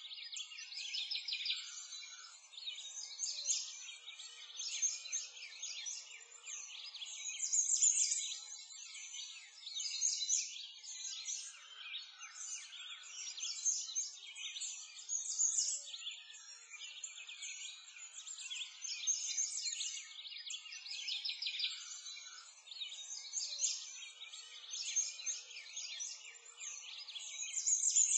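A dense chorus of birds chirping and singing continuously, with many quick, high calls overlapping throughout.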